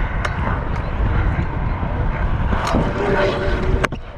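Pro scooter wheels rolling on skatepark concrete: a steady rumble with a few clicks and one sharp clack near the end.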